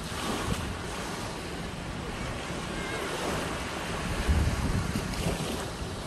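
Small waves washing up and back over a sandy shore in a steady hiss, with wind buffeting the microphone in low rumbles, strongest a little past the middle.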